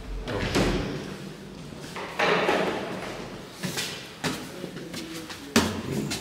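Footsteps and knocks climbing hard stone stairs: a series of irregular thumps, roughly one a second.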